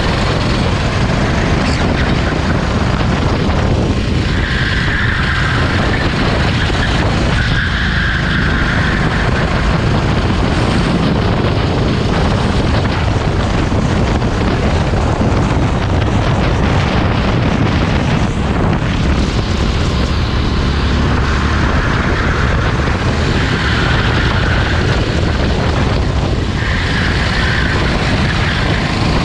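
Racing kart engine running hard during a race, heard together with a steady rushing noise.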